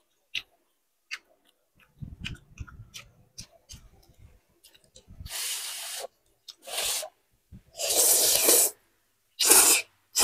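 A person slurping noodles, several loud sucking pulls from about five seconds in, the longest near eight seconds. Before them, chewing and small mouth smacks.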